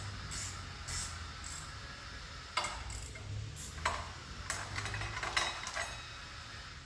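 Metal hand tools and engine parts clinking and knocking: a few sharp, ringing clinks, the clearest about two and a half and four seconds in, then a quick run of lighter ones.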